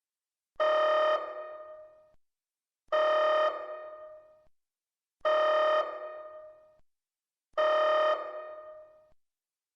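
Synthesized alert tone sounding four times, about every 2.3 seconds. Each is a buzzy steady note about half a second long with an echoing tail, announcing an incoming Priority 1 red-alert message.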